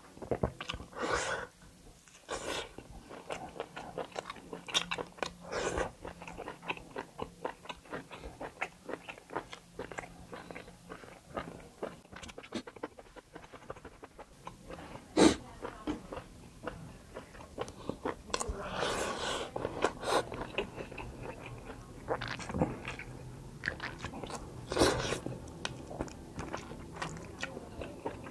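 Close-miked chewing and biting of kalij pheasant meat, with many wet mouth smacks and clicks and a single sharp click about fifteen seconds in.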